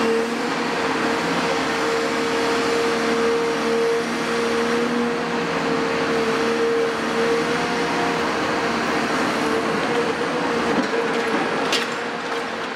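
Cat 336F long-front demolition excavator running, its Cat C9.3 diesel and hydraulics giving a steady whine over a broad hiss while the demolition shear is moved. There is a single sharp click near the end.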